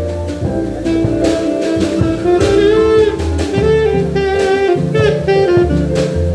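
Taiwanese-made alto saxophone with a DD Peng mouthpiece playing a jazz melody, with a held, wavering vibrato note about halfway through. A live band backs it with a bass line and drum kit.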